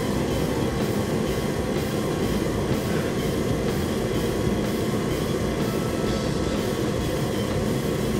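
Forced-air torpedo heater running, a steady, even noise with no breaks, under faint background music.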